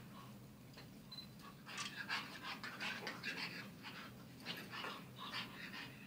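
Pug and shar pei puppies wrestling at play, with quick, noisy breaths in short rapid bursts starting about two seconds in, over a faint steady low hum.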